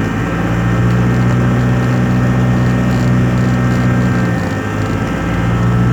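Cessna 172R's four-cylinder Lycoming engine and propeller running steadily, heard from the cockpit; the engine note dips briefly about four and a half seconds in and then picks up again.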